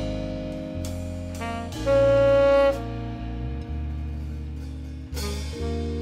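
Tenor saxophone playing the slow jazz ballad with long held notes over piano, electric bass guitar and drums; the loudest is a held sax note about two seconds in.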